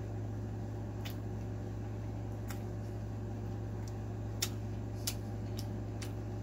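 Close-miked mouth sounds of chewing chow mein noodles: soft, wet clicks, about one a second, over a steady low hum.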